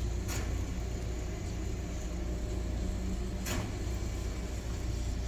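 Steady low engine rumble of distant machinery, with a brief hiss twice.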